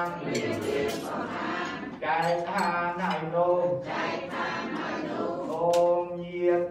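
Buddhist monks chanting in unison through a microphone, in phrases held on level, steady notes with short breaks between them.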